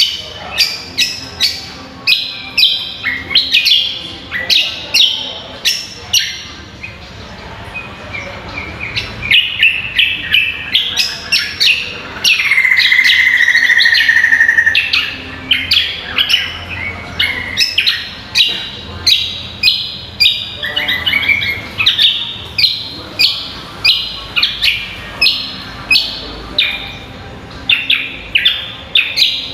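Greater green leafbird (cucak kombo) singing: a rapid run of short, sharp chirps, about two a second, broken about twelve seconds in by a loud held call of about three seconds, slightly falling in pitch.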